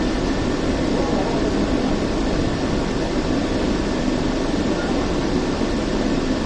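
Steady running noise inside a Hong Kong Peak Tram funicular car as it moves along its track, an even rumble with no separate knocks or clicks.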